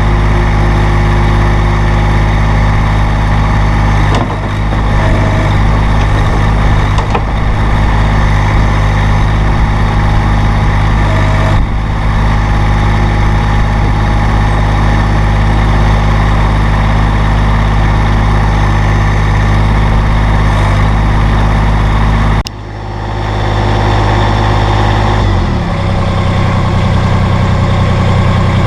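Massey Ferguson GC-series sub-compact tractor's diesel engine running steadily. There is a sudden break about three-quarters of the way through, and the engine note changes shortly after.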